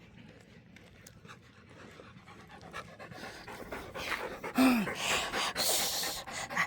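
A dog panting hard after running to fetch a ball, quiet at first and getting louder over the last few seconds as it comes back.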